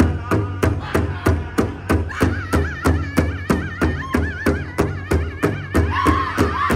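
Powwow drum group playing a Women's Fancy Shawl song: several singers strike one large shared hand drum together in a steady beat of about three strokes a second. High, wavering singing comes in about two seconds in, and the voices grow stronger near the end.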